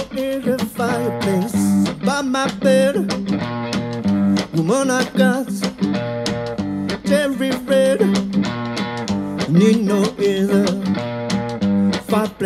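Live blues band playing an instrumental passage: an electric guitar lead with bent, wavering notes over a steady bass line and a drum kit keeping the beat.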